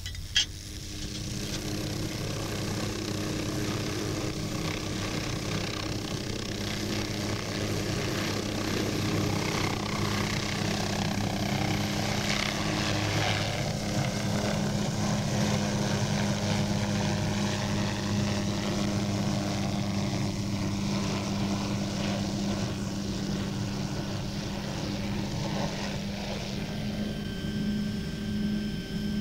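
Hughes 500C helicopter in flight, its turbine and rotor running steadily. A single sharp click comes just after the start.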